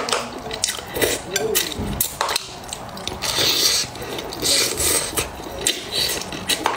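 Close-miked eating of red-braised fish: slurping and sucking the flesh off the bones, with sharp clicks of chopsticks against the plate and a plastic bowl. A longer slurp comes about three seconds in.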